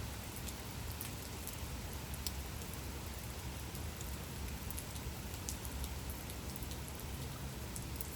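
Gentle rain falling steadily, with scattered individual drops ticking sharply now and then over an even hiss.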